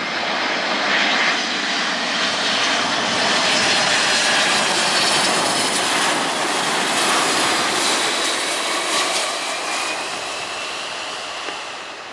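Jet engines of a Boeing 747-400 freighter on final approach, a broad jet noise that swells as it passes low, is loudest about four seconds in, and eases off as it moves away toward the runway. A faint high whine comes up in the last few seconds.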